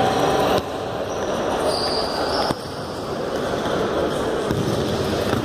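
Sounds of futsal play on an indoor court: the ball being kicked and bouncing, with brief high squeaks of players' shoes, echoing in the sports hall.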